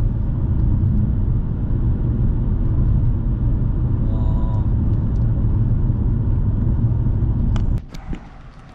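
Steady low road-and-engine rumble inside a moving car cruising on a highway. It drops away suddenly near the end to much quieter open-air ambience.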